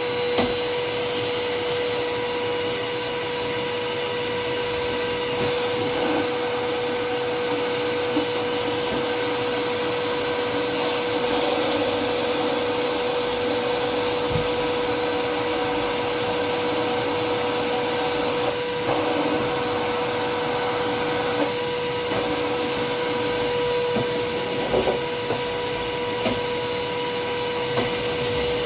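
Vacuum cleaner motor running steadily with a constant whine, used to blow out a fridge's blocked drain holes; a few light knocks sound over it.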